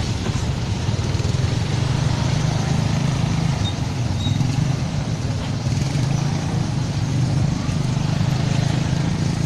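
Steady drone of a moving road vehicle: an engine hum sitting low under an even wash of road noise, with no sudden changes.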